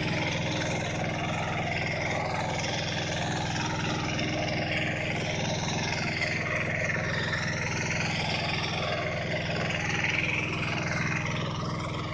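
Tractor with a rotary tiller, its engine running steadily, with a higher whine that wavers up and down in pitch over the steady hum.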